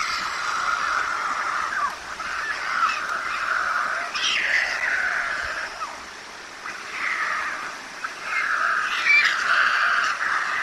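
Juvenile white storks begging in the nest, calling in stretches of a second or two with short breaks, with a few sharp chirps about four seconds in and again near the end.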